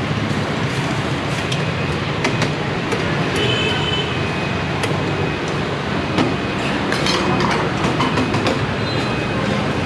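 Utensils clinking: metal tongs and ladles tapping ceramic bowls and steel pots in a street-food kitchen, many sharp clicks over a loud, steady low rumble.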